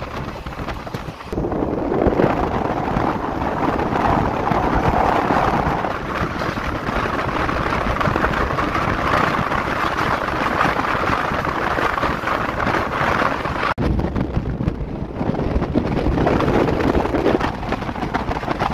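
Steady running noise of a moving passenger train heard from on board, wheels on the rails, with wind on the microphone. The noise steps up about a second in and drops out for a moment after about fourteen seconds.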